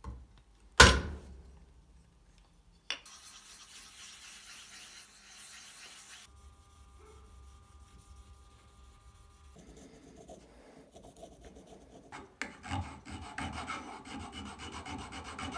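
Hand-tool work on a knife: a sharp knock about a second in and a smaller one near three seconds, then stretches of rasping, rubbing strokes of hand filing.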